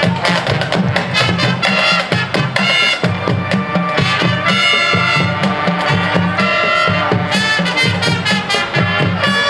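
High school marching band playing, brass horns over a driving percussion beat with frequent drum hits.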